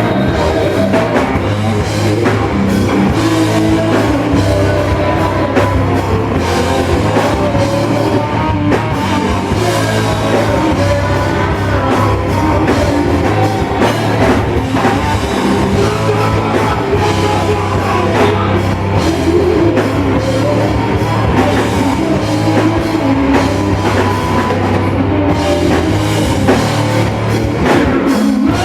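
Rock band playing loud, heavy rock music with a steady drum-kit beat, continuous with no breaks.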